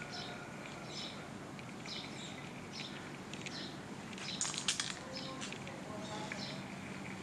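Small birds chirping, short high chirps repeating about once a second, over a steady low background hum. A brief cluster of sharp clicks about four and a half seconds in is the loudest sound.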